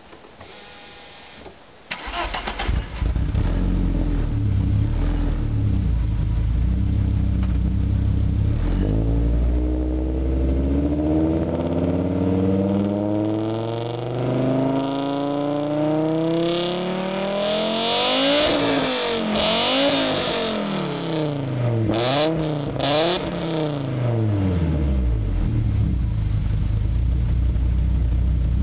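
Audi 90 2.3 20V Quattro's inline five-cylinder engine, heard at the tailpipe of a 2.5-inch stainless exhaust with the centre silencer removed and a catalytic converter welded in its place. It starts about two seconds in and idles, then is revved up slowly and given several quick blips before dropping back to idle near the end.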